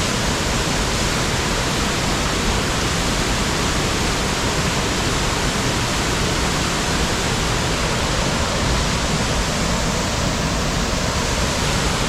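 Waterfall on Little Carr Creek, water pouring and rushing in a loud, steady, unbroken roar.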